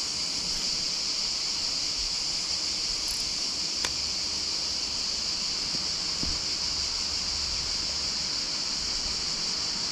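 Steady, even high-pitched hiss of an insect chorus, with a single sharp click about four seconds in.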